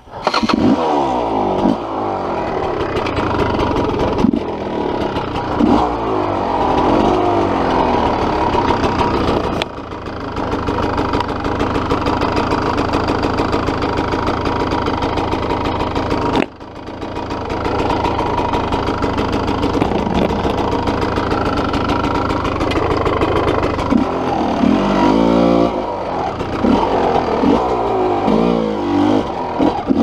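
Dirt bike engine revving hard, its pitch rising and falling again and again as the throttle is worked. The engine note drops off sharply twice, about a third of the way through and just past halfway, then builds back up.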